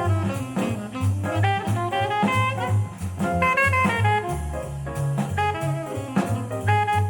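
Jazz played back through JBL 4307 studio monitor speakers: a horn melody over a stepping bass line and drum kit.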